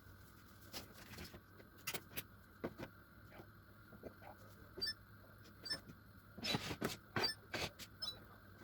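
Scattered light clicks and knocks of kitchen utensils and dishes being handled, with a few small clinks, busiest from about six to eight seconds in, over a faint steady hum.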